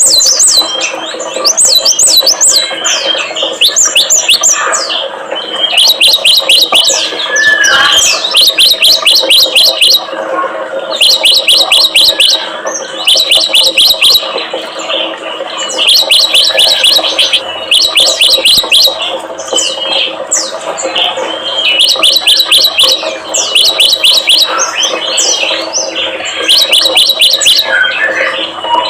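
Songbird song in rapid chattering trills of high, sharp notes, about eight notes a second. Each burst lasts a second or so and repeats every two to three seconds, over a faint steady low drone.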